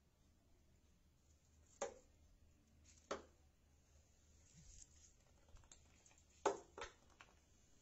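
A garlic clove batted by a cat, tapping and skittering on a tiled floor: a few sharp taps about two and three seconds in, then lighter clicks and a loud close pair near the end.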